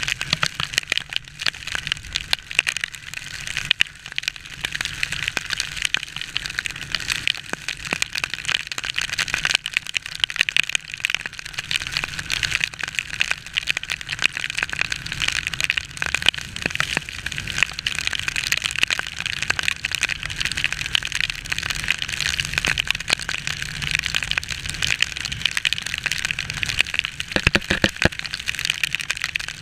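Heavy rain pattering and crackling densely on a motorcycle-mounted camera and the wet bike, with a steady low rumble from the moving motorcycle underneath.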